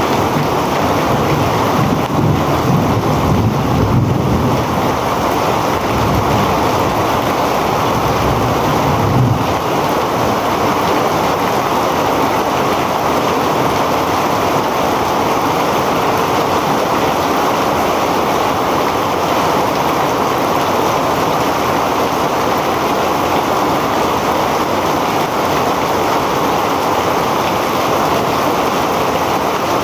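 Heavy rain pouring steadily, a dense even hiss. For the first nine seconds or so, gusts of wind add a low rumble on the microphone.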